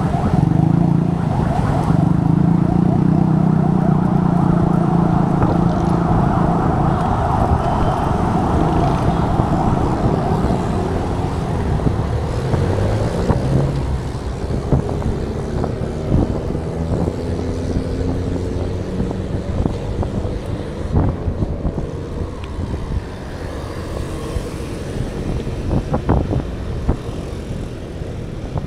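Road traffic heard from a bicycle riding among it: motorcycle and car engines running close by, strongest in the first dozen seconds, then fading into a steady rushing background with a few sharp clicks.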